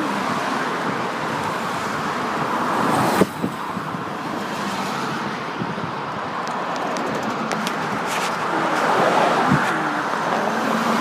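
Road noise heard from inside a moving car: a steady rush of tyre and wind noise with the engine underneath, and a single sharp click about three seconds in.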